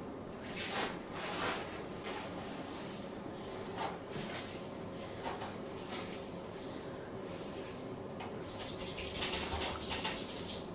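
Hands working on skin during a massage: short rubbing strokes, then a louder run of rapid tapping or rubbing lasting under two seconds, starting about eight and a half seconds in.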